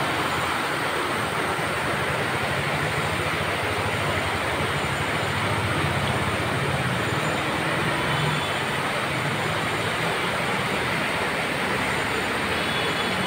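Steady rain falling, an even hiss, with a low rumble swelling and fading around the middle.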